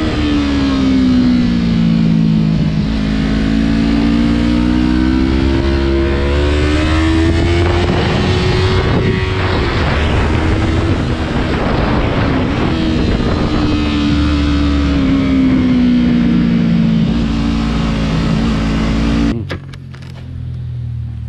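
Yamaha sport motorcycle's engine on a circuit lap, the revs rising and falling as it accelerates and slows for corners: a long fall in pitch about two seconds in, a climb, then another fall toward the end. It cuts off suddenly about nineteen seconds in, leaving a much quieter background.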